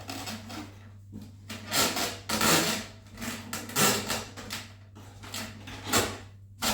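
Foam stand squeaking and rubbing under an RC biplane as its wing is worked into place, in irregular swells of about a second each, over a steady low hum.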